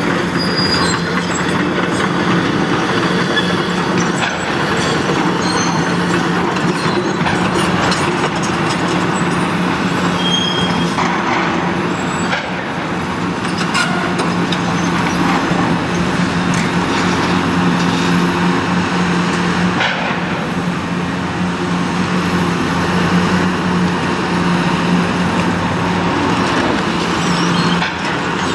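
Caterpillar 336E excavator's diesel engine and hydraulics running steadily under load with a constant low hum. Scattered clinks and knocks of concrete rubble sound as its demolition shear grabs and breaks up a reinforced concrete slab.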